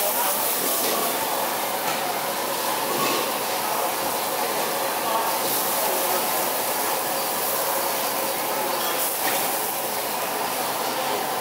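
Seafood frying in a metal wok over a gas burner: a steady hiss and sizzle, with a few sharp knocks of a metal ladle and spatula against the wok.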